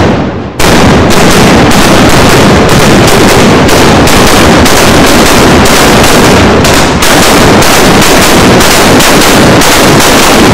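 Very loud rolling broadside from HMS Victory's guns, fired by pyrotechnic charges: shot after shot, several a second, overlapping into a near-continuous barrage with a brief lull about seven seconds in.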